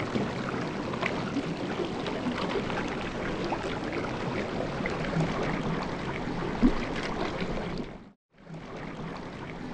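River current rushing and rippling around a wading angler, a steady splashy wash of water. It cuts out for a moment about eight seconds in.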